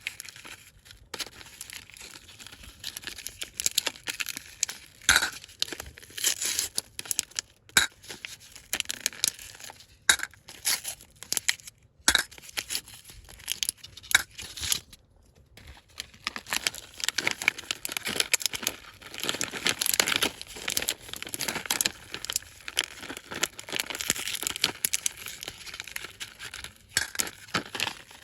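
Candy wrappers being torn open and crinkled as sweets are unwrapped, in quick irregular crackles with a few short pauses. The handling is most continuous in the second half.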